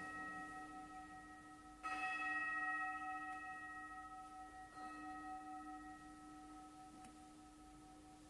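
A bowl-shaped altar bell (gong) is struck twice, about two seconds in and about five seconds in, and rings on over the fading tone of a strike just before. Its several steady tones die away slowly. It is rung at the elevation of the host during the consecration.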